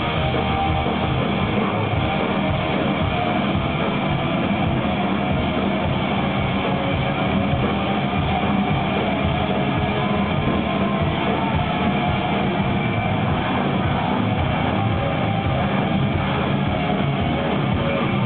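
Stoner rock band playing live at a steady, loud level: several electric guitars over bass and drums.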